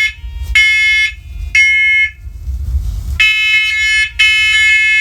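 Wirelessly interlinked First Alert OneLink talking smoke alarms sounding on test. They give the three-beep pattern of half-second beeps, then a pause of about a second, then several units beep at once, slightly out of step with each other.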